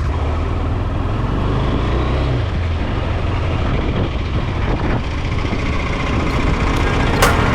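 KTM Adventure motorcycle engine running steadily while riding, with a rushing noise over it. A sharp click near the end.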